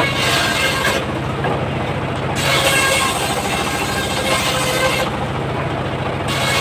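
Homemade circular sawmill running steadily while its blade rips through coconut palm wood, the high cutting hiss coming in spells with two short breaks of about a second, one near the start and one near the end.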